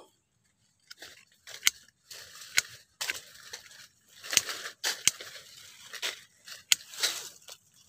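Hand pruning shears snipping durian twigs and small branches: a handful of sharp cuts spaced roughly a second apart, with rustling of leaves and branches between them.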